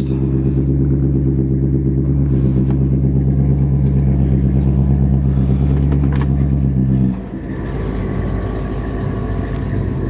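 1968 Oldsmobile 442's 400 V8 idling steadily at the trumpet exhaust tips. About seven seconds in the sound drops a little and turns rougher and less even.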